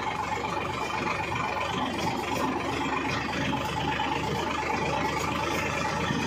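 Farm tractor's diesel engine running steadily while under way, heard from the driver's seat.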